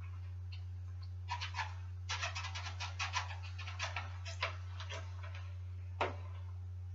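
Light clicks and rattles of small metal bicycle brake parts and hardware being handled and fitted: a quick cluster over about four seconds, then one sharper click near the end.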